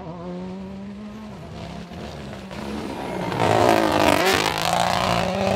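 A Mini rally car approaching and passing at speed, its engine note building to the loudest point about four seconds in and dipping in pitch as it goes by, with tyres hissing on the wet tarmac.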